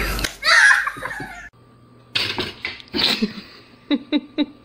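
A loud, high-pitched cry about half a second in, then after a short gap a person laughing in four quick bursts near the end.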